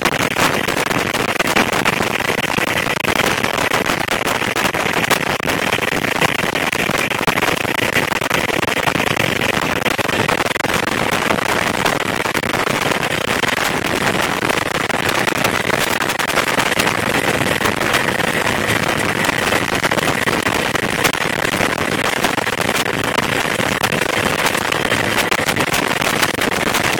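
Helicopter in flight heard from inside the cabin: steady loud rotor and engine noise with a faint steady whine.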